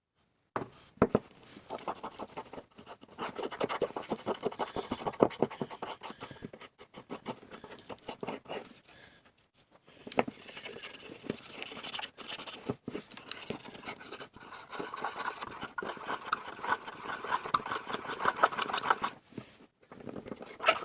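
Rapid, repeated scratching and rubbing strokes on a small part of a 1940s Ensign Ful-Vue camera, in two long spells with a short pause near the middle.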